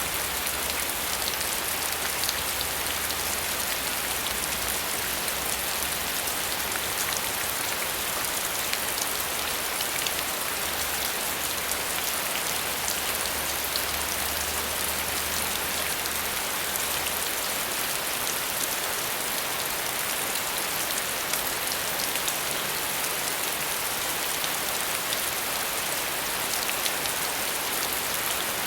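Steady rain falling, an even hiss with the patter of scattered drops.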